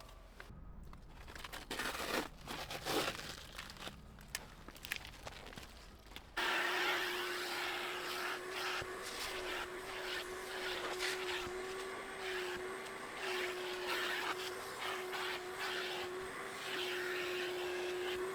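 Rustling and knocking of things being handled for the first six seconds or so. Then a vacuum cleaner starts abruptly and runs with a steady hum and hiss.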